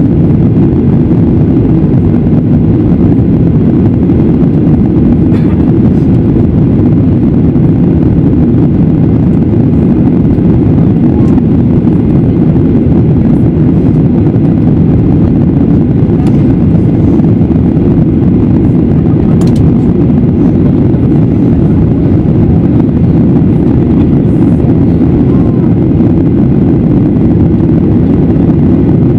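Boeing 737-800 airliner in the climb after takeoff, heard from inside the passenger cabin: a loud, steady low drone of its CFM56-7B engines and the airflow over the fuselage.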